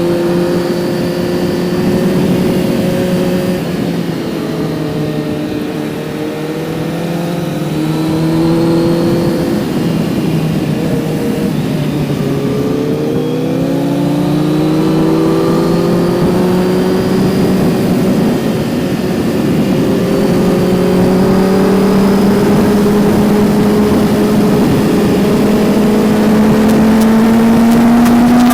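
Kawasaki Z900's 948 cc inline-four engine heard onboard while riding, its pitch falling and rising as the rider rolls off, accelerates and changes gear, then climbing steadily near the end. Wind rushes over the microphone underneath.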